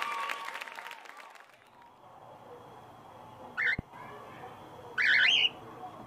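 An applause-like noise fades out over the first second or so. Then a cockatiel calls twice: a brief call about halfway through, followed by a single click, and a louder call of about half a second near the end.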